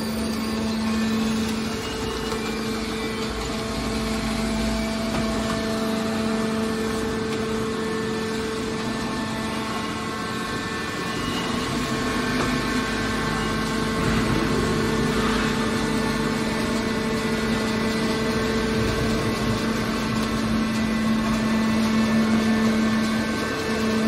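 Hydraulic scrap-metal baler's power unit running, a steady mechanical hum of constant pitch.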